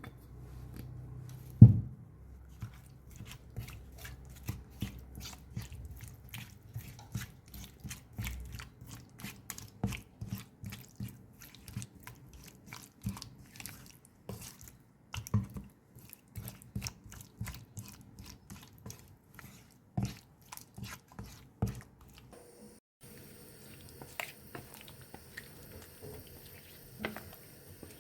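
Food being prepared by hand in a kitchen: a heavy thump about two seconds in, then quick regular strokes of a utensil against food or a board, about two to three a second. Near the end the background turns to a steady hiss with only scattered clicks.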